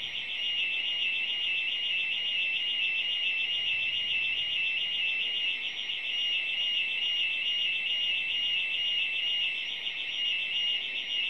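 Burglar alarm's siren and internal sounder going off after being triggered in a test: one continuous high-pitched electronic tone with a fast, even warble.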